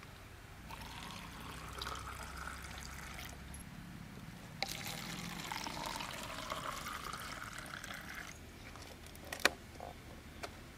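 Liquid jelly mix being poured into plastic cups, a faint trickling stream heard in two pours, then a single sharp click about nine and a half seconds in.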